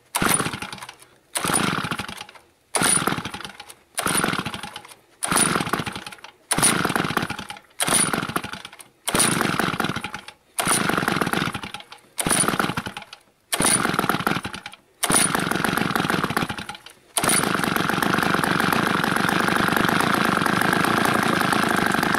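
Two-stroke chainsaw engine fed on wood gas from a homemade gasifier, sounding in short bursts about every second and a quarter, each one fading away, as it is coaxed to start. About 17 seconds in it catches and runs steadily.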